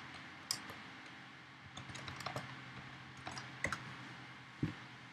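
Keystrokes on a computer keyboard: an irregular run of separate clicks as a terminal command is typed, over a faint steady low hum.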